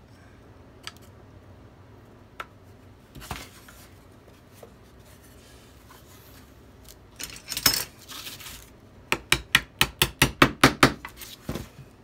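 Small hammer tapping a birch dowel through a wooden bird-feeder frame: a quick run of light, sharp taps, several a second for about two seconds near the end. Before it come a few scattered knocks and the rustle of the wooden frame being handled.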